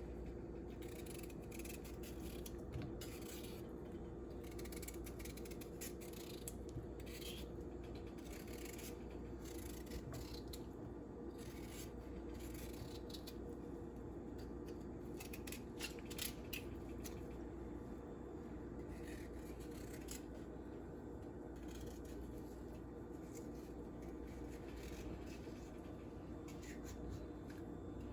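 A knife peeling and cutting vegetables: short, irregular scrapes and clicks over a steady low hum.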